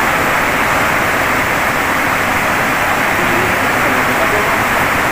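A steady, loud rushing noise that runs on without a break or change.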